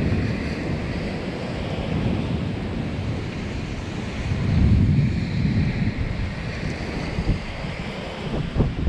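Gusty wind rushing over the microphone, swelling into a low rumble about halfway through.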